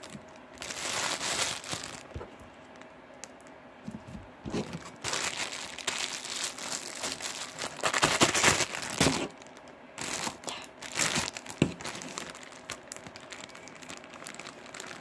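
Crinkling and rustling as objects are handled and moved about, in several irregular bursts, loudest about eight to nine seconds in.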